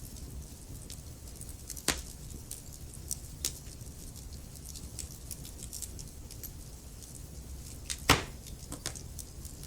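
Wood fire crackling, with a low steady rumble under frequent small snaps. Sharper pops come about 2 s in and again, loudest, about 8 s in.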